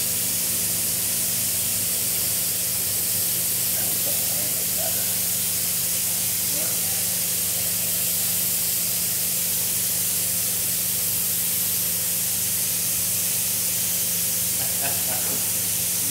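Large-format robotic-arm 3D printer running as its print head lays down a print: a steady loud hiss with a steady low hum underneath.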